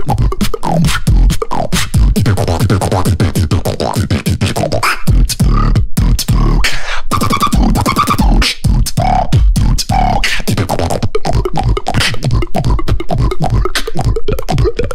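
Beatboxing into a microphone: a fast, dense run of drum sounds over a deep buzzing bass, with a few short breaks in the middle.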